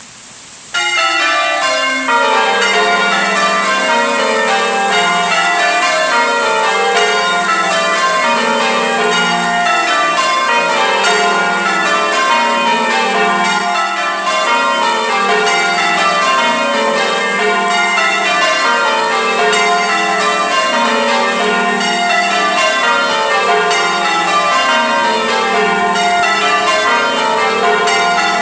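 Church tower bells being rung full-circle in change ringing. The ringing starts about a second in, with strike after strike in rows that each run down from the highest bell to the lowest.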